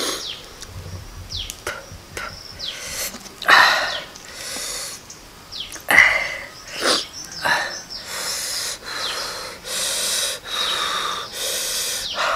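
A man's wheezing, hissing breaths through the mouth from the burning heat of raw onion with chili sauce. Two sharp louder breaths about three and a half and six seconds in, then about five long hissing breaths in a row near the end.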